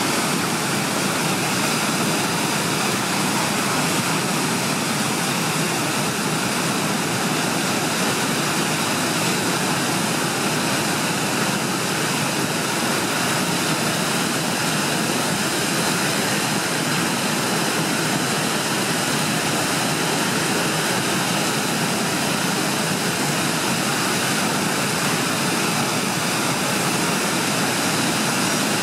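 Steady rushing of fast tidal rapids and a breaking standing wave, an even roar of white water.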